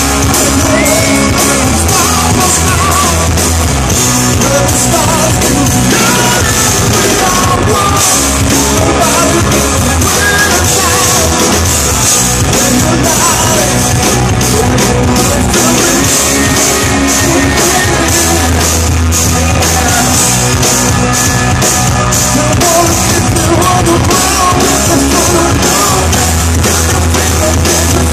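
A rock band playing loud live: electric guitar, bass guitar and a drum kit, heard from within the audience.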